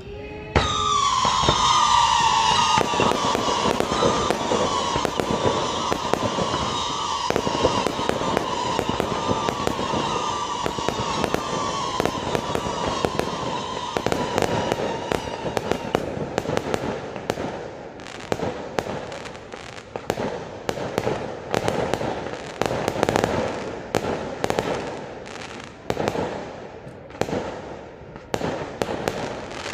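Fireworks going off: about half a second in a barrage starts, with many shrill whistles sliding slightly down over dense crackling for some fourteen seconds. After that comes a string of separate sharp bangs.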